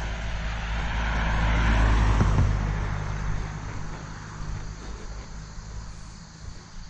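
An engine passing by: a low hum that swells to its loudest about two seconds in and then slowly fades.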